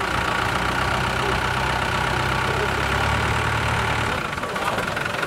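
Land Rover 110 County's engine idling steadily; its low hum drops away about four seconds in.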